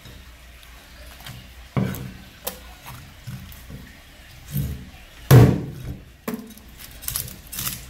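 Kitchen knife and gray mullet knocking on a cutting board while the fish are cleaned: about five dull knocks, the loudest a little past halfway, with smaller clicks near the end.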